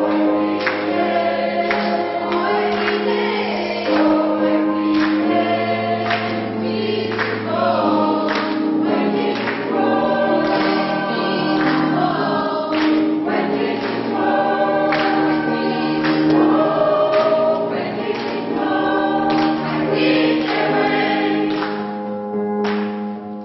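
Polyphonic choir singing a gospel song in sustained full chords over a steady beat; the sound dies away on the last chord near the end.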